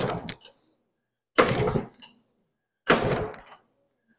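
An Arctic Cat Panther snowmobile's twin-cylinder two-stroke engine is cranked by hand on its recoil pull-starter: three hard pulls, about a second and a half apart, with the spark plug out and a compression gauge on the right cylinder, throttle closed. It is really hard to pull, which the owner puts down to something seized, perhaps in the carb.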